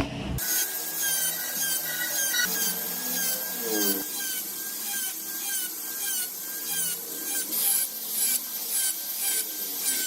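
Wood being rasped or sanded by hand in quick back-and-forth strokes, about two a second, each stroke with a slight squeak.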